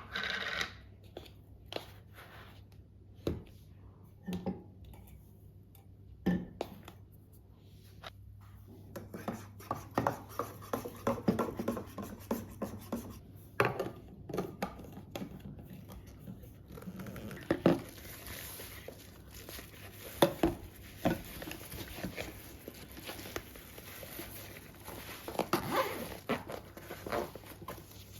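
Household items being handled by hand: scattered light knocks and clicks of containers and dishes being set down, with rustling and scraping between them, busier in the second half.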